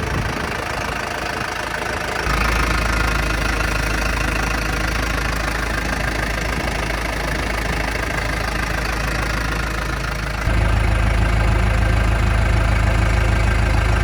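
Diesel engine of a 2007 Case 580 Super M Plus backhoe (95 hp CNH) running steadily. The sound jumps louder abruptly about two seconds in and again about ten seconds in, with a stronger low hum.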